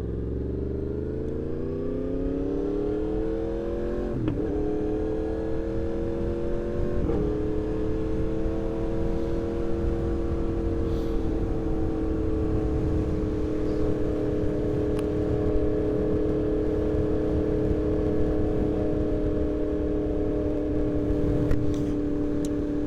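2024 Yamaha MT-10's crossplane inline-four, through a RaceFit Growler X exhaust, pulling hard under acceleration. It makes two quick clutchless upshifts, about 4 and 7 seconds in, then settles into a steady cruise, with wind noise on the rider's microphone.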